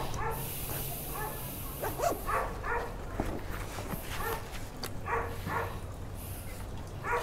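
An animal giving about seven short pitched calls, a second or so apart, over a low steady hum.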